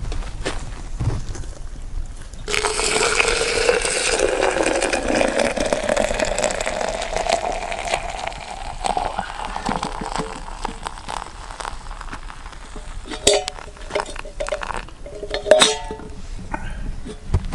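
Hot liquid poured steadily into a container, its pitch rising as the vessel fills, for about six seconds. Near the end come several sharp clinks of cups or metal coffee gear.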